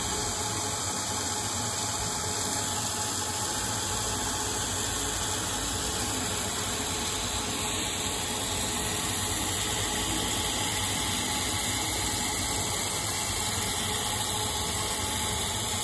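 ProtoTRAK CNC lathe spindle running steadily under a constant hiss from a spray-mist coolant nozzle while the threading tool takes light spring passes along a 4140 steel ACME thread.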